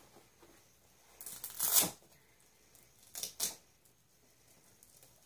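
A few short rustling, handling noises: a longer one a little over a second in, then two quick ones about three seconds in.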